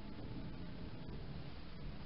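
Quiet studio room tone: a steady low hiss with a faint low hum and no distinct events.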